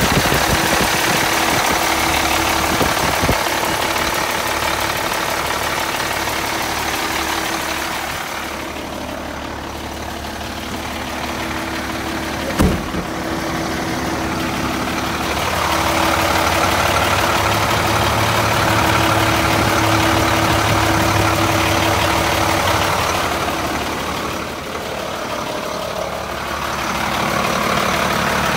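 International DT-466 7.6-litre turbo diesel idling steadily, fading and swelling twice, with a single sharp knock near the middle.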